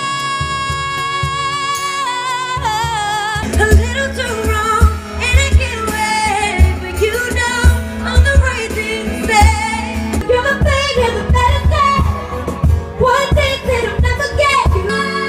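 Female mezzo-soprano pop singer belting high notes around C#5 live, with a band behind her. A long, steady held note opens, then about three seconds in the sound switches to another live recording with bass and a beat under her singing, full of vibrato and quick runs.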